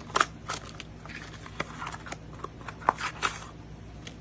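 Packaging and small accessories being handled by hand: irregular crinkles of plastic bags, scrapes and small clicks and taps. The sharpest taps come just after the start and about three seconds in.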